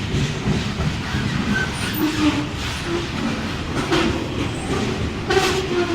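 Ferrosur freight train rolling past at close range, with steady wheel-on-rail rumble and clatter. Short metallic wheel squeals come and go, with a sharper screech about five and a half seconds in.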